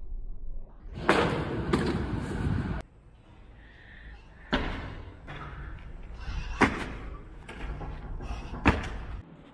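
About five sharp thuds, a second or two apart, from parkour landings and footfalls. The first two come inside about two seconds of loud rushing noise.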